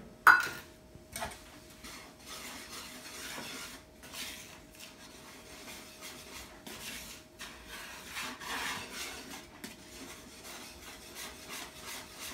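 Wire whisk stirring dry flour and sugar in a bowl: a steady soft scraping rasp that swells and fades with the strokes, after a single sharp knock just after the start.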